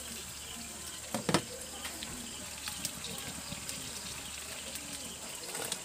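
Breaded crab pieces frying in oil in a wok over a wood fire: a steady soft sizzle with scattered small pops, and two louder pops a little over a second in.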